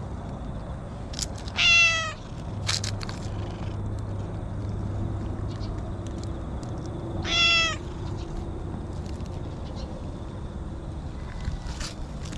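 Orange-and-white stray cat meowing twice, two short calls about six seconds apart, each dipping slightly in pitch at the end.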